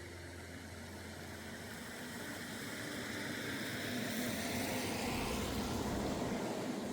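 A motor vehicle passing by: a rushing engine-and-tyre noise that grows steadily louder, peaks, and drops away near the end.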